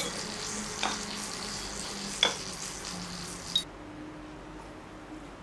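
Knife and fork clinking against a porcelain plate while cutting grilled abalone: three sharp clinks over a steady crackling hiss that cuts off suddenly about three and a half seconds in.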